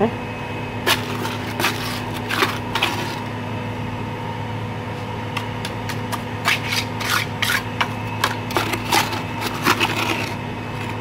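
Trowel scraping and tapping on wet cement mortar around the rim of a PVC pipe, in irregular short strokes that come in two bursts of work, over a steady low hum.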